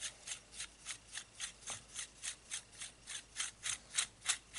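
Dry rasping rub repeated in an even rhythm of about three to four strokes a second: the eyepiece of a Weaver G4 rifle scope being twisted off by hand, a grip at a time.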